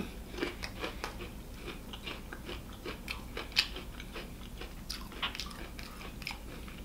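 Close-miked eating sounds: soft, wet clicks and smacks of chewing and of fingers pulling apart a stacked triple bacon burger, with one sharper click about three and a half seconds in.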